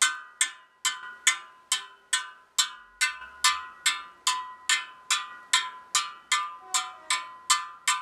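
Steel spokes of a Triumph Terrier rear motorcycle wheel struck one after another, about twenty ringing metallic pings at roughly two and a half a second. All ring at pretty much the same note, the sign that the spokes on this side are evenly tensioned.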